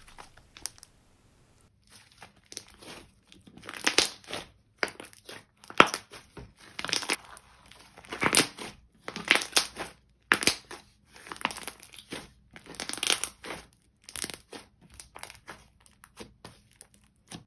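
Pink DIY clay slime, soft clay mixed into a glossy slime base, being stretched, folded and pressed by hand. It gives irregular bursts of sticky crackling and tearing noise with sharp little clicks.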